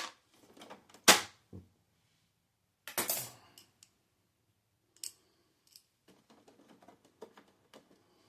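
Printer parts knocking and clicking as they are handled and taken apart by hand: a few sharp knocks, the loudest about a second in, a short scraping rattle about three seconds in, then scattered light ticks.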